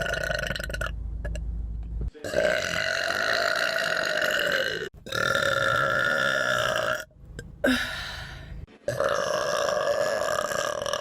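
A run of long, drawn-out human burps, each held for two to three seconds at a fairly steady pitch and cut straight into the next. A short one comes between the longer ones, about two-thirds of the way through.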